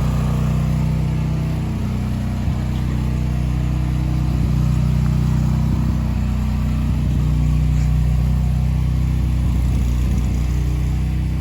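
Car engine running steadily at low speed, a constant low hum with road noise.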